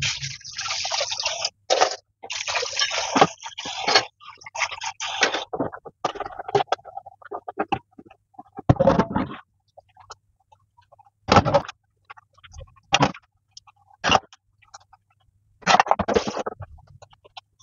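Dishes being washed by hand in a kitchen sink. For the first five seconds or so there is a stretch of splashing water and scrubbing. After that come scattered knocks and clatters as plastic containers and bowls are handled and set down.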